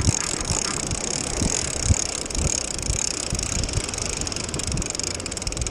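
Spinning reel being cranked, a steady mechanical whir, over wind buffeting the microphone and surf washing against the rocks.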